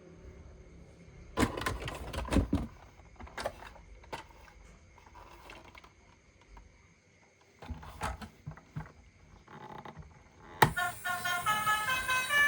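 Several clusters of sharp clicks and knocks of objects being handled, most of them in the first three seconds and again around eight seconds in. Near the end, music starts with a sudden hit.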